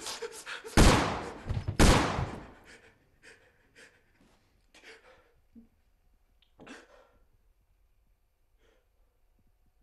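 Two gunshots about a second apart, each a sudden loud blast with a short echoing tail.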